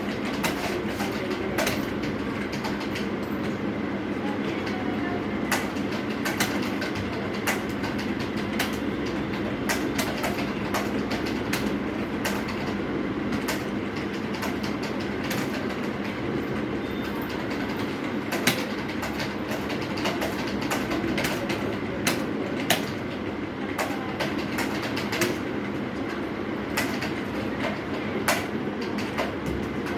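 Computer keyboard keys clacking in an irregular stream of typing strokes, over a steady low hum.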